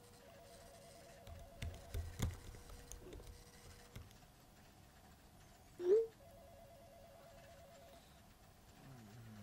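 A telephone ringing faintly: two warbling rings a few seconds apart. A few knocks sound during the first ring, and a short rising chirp, the loudest sound, comes just before the second.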